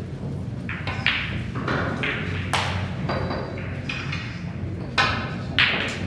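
Snooker hall room sound: a steady low hum with scattered short clicks and knocks. Two sharper clicks come about five seconds in.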